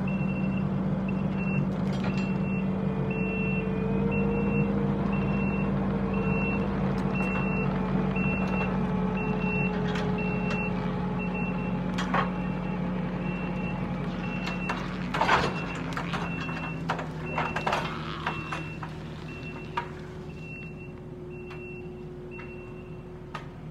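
Kubota SVL75 compact track loader's diesel engine running steadily under load as it backs up towing a dead tractor, its reversing alarm beeping about twice a second. A cluster of sharp cracks and snaps sounds around the middle.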